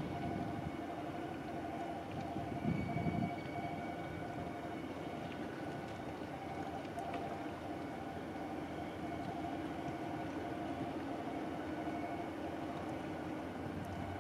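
Freight train of tank wagons rolling steadily across a steel girder railway bridge, with a faint thin whine from the wheels that comes and goes.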